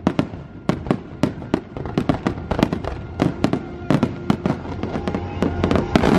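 Fireworks display barrage: many aerial shells bursting in quick succession, several sharp bangs a second, the loudest near the end.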